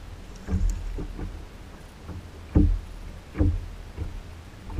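Water slapping against the plastic hull of a Hobie Outback fishing kayak: dull thuds, one about half a second in and two louder ones a little past the middle, over a low steady rumble.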